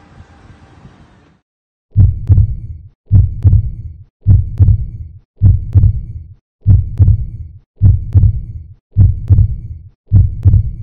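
Heartbeat sound effect: paired lub-dub thumps repeating about once every 1.2 seconds, starting about two seconds in after faint room noise cuts to silence.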